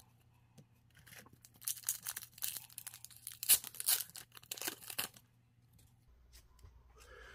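An Upper Deck hockey card pack's foil wrapper being torn open and crinkled, a run of sharp crackles for about four seconds that stops about five seconds in.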